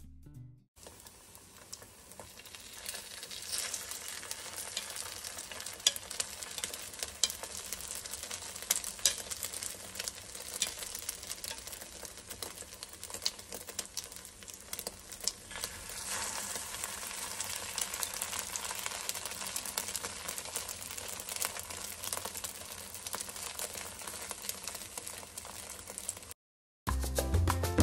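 Egg-coated kimbap slices frying in oil in a nonstick pan: a steady sizzle full of small crackles and pops, which cuts off near the end.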